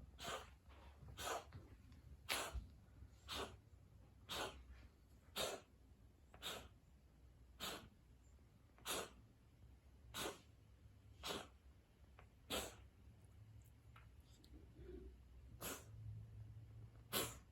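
An animal coughing in a run of short, sharp coughs about one a second, about a dozen in a row, then two more after a pause.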